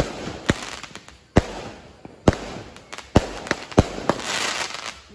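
Consumer aerial fireworks firing: a string of about eight sharp bangs at uneven spacing, roughly one every half second to second, as shells launch and burst overhead. There is a crackling hiss around four seconds in.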